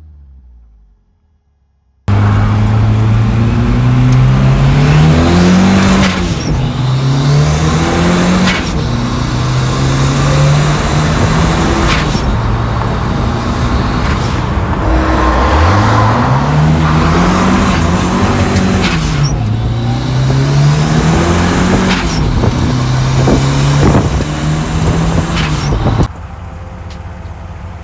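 Turbocharged Ford 2.3-litre four-cylinder in a Volvo Amazon running hard: the engine note climbs and drops again and again as the car accelerates and shifts gears, with abrupt jumps in the sound between stretches. It starts about two seconds in and falls to a quieter steady sound near the end.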